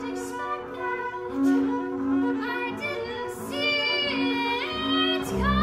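Double bass played with the bow, holding sustained notes, while a woman sings above it with sliding, wavering pitches in the second half. A deep low note comes in just before the end.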